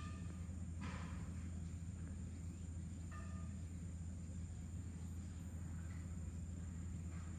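Steady low background hum, with a few faint, brief higher sounds about a second in, around three seconds in and near the end.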